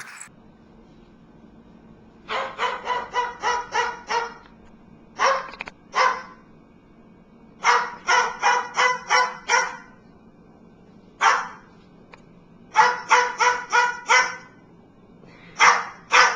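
A small dog yapping in quick runs of high-pitched barks, about four a second, with short pauses between the runs and a few single yaps.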